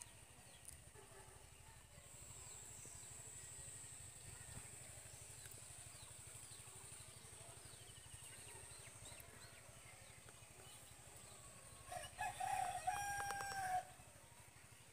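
A rooster crowing once near the end, a single call of a little under two seconds, over quiet outdoor background.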